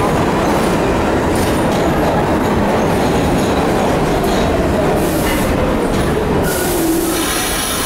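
New York City subway train pulling into the station and slowing to a stop, with a loud steady rumble of wheels on rails. Over the second half a whine falls in pitch as the train slows, and two short hisses come near the end.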